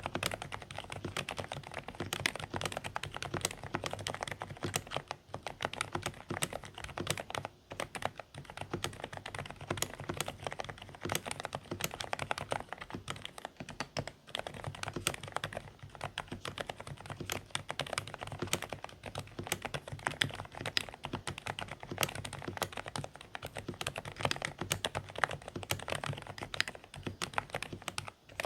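Fast, continuous typing on a Dareu A104 Pro mechanical keyboard with silent (low-noise) beige switches: quiet, muffled key strokes in rapid succession, with a few short pauses.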